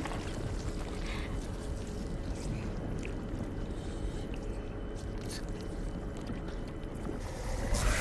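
Low, steady rumble of a ship's interior ambience, with faint water sounds and a few soft ticks. It swells up near the end.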